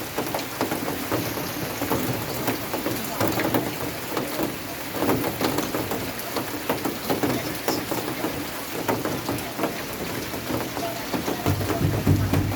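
Rain falling steadily, with many separate drops striking close by. A low rumble comes in near the end.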